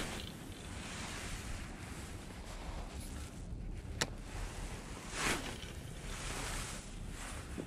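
Wind buffeting the microphone in a steady low rumble, with a baitcasting rod swished through the air as it is cast at the start and again about five seconds in, the second swish falling in pitch. A single sharp click about four seconds in, with the hands at the reel.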